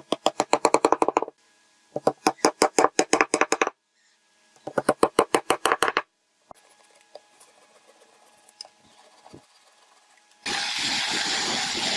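Wooden dowels being tapped into glued holes in a wooden chair seat: three quick runs of blows, about eight a second, each lasting a second or so, with short pauses between. A few light knocks follow, then near the end a hand saw cuts steadily, trimming a dowel flush with the seat.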